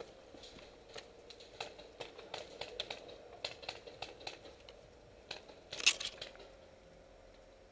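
Light scattered crackling and clicking of leaves and twigs brushing against a helmet-mounted camera in dense bushes, with a louder sharp crackle a little before six seconds in.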